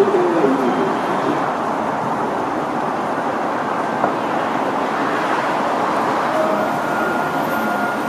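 Steady traffic noise from cars on a busy city street, with a passer-by's voice briefly at the start.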